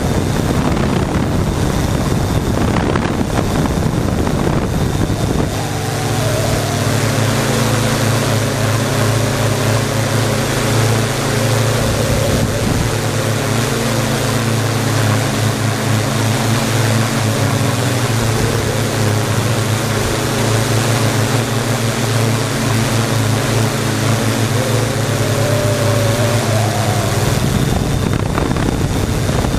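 Multirotor drone's motors and propellers whirring in flight, with wind rushing over the camera microphone. A steady low hum with a wavering higher tone comes in about six seconds in and drops away about two seconds before the end.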